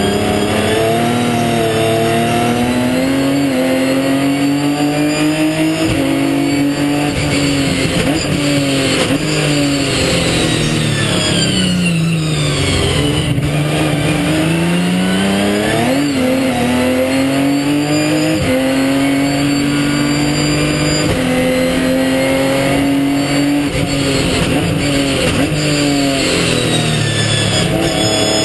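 Ginetta G50 race car's 3.5-litre Ford V6 engine heard from inside the car under hard racing: the revs climb and drop back sharply at each upshift several times. About ten seconds in the revs sweep down and then climb smoothly again.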